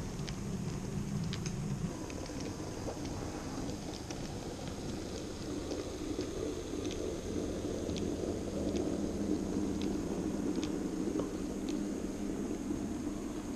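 N-scale model train rolling along the track: a steady low rumble of wheels on rail, with scattered light clicks at irregular intervals.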